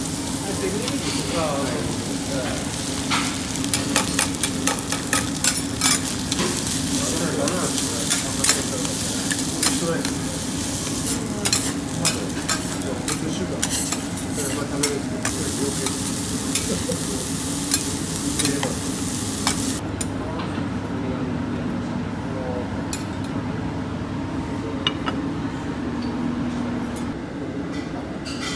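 Beef fried rice sizzling on a steel teppanyaki griddle while metal spatulas rapidly clack, chop and scrape against the plate. The sizzle and clatter stop about two-thirds of the way in, leaving a steady low hum with only a few light clicks.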